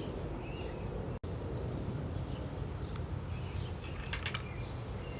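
Outdoor ambience: a steady low rumble with a few faint bird chirps, and a few light clicks about four seconds in.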